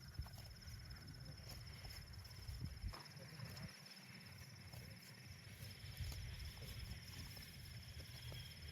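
Insects chirring steadily in a high, finely pulsing band, over a low rumble and a few faint clicks.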